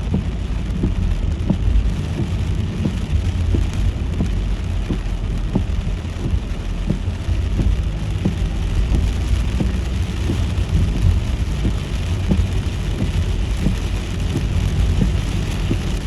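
Raindrops tapping on a moving car, over a steady low rumble of road and engine noise.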